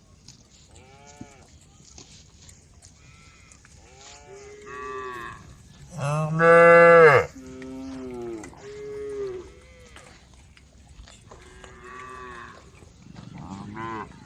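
Cows mooing, about seven separate calls in turn, each rising and then falling in pitch. The loudest is a long moo about six seconds in, lasting about a second.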